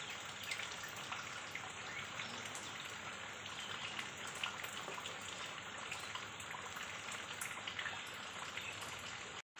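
Heavy rain falling steadily onto standing floodwater: an even hiss dotted with many small drop ticks.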